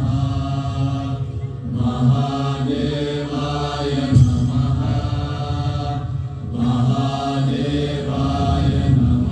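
Chanted mantra with musical accompaniment, sung in phrases of a couple of seconds each over a low drone, from the sound and light show's soundtrack.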